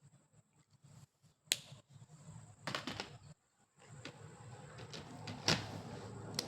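A few sharp clicks or taps, the loudest about a second and a half in and again about five and a half seconds in, over a faint steady high whine.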